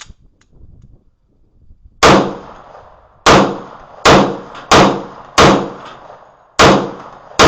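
Magnum Research 1911 pistol in 10mm firing 180-grain full metal jacket rounds. About seven shots come at an uneven pace of roughly one a second, each with a short echoing ring, beginning about two seconds in after a few faint handling clicks. The pistol cycles the magazine without a malfunction.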